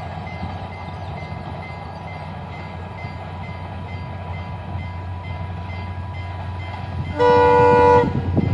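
Sri Lanka Railways Class M11 diesel locomotive approaching with a steady low rumble, then sounding its horn in one short blast of under a second, about seven seconds in. The rumble is louder after the blast as the train draws near.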